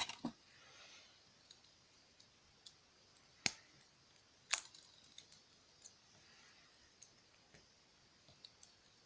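Small hand tools clicking and ticking against tiny wristwatch parts as the watch is taken apart: scattered light clicks at an uneven pace, with two sharper ones about three and a half and four and a half seconds in.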